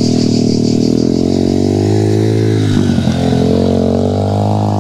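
Enduro dirt-bike engines running at a steady, even note, with another dirt bike riding up the gravel track and passing close by about three to four seconds in.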